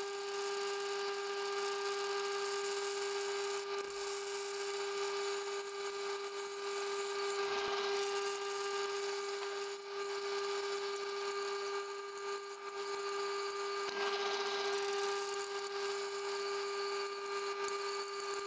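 Benchtop drill press running with a steady motor whine while a Forstner bit bores into a 25 mm plastic rod.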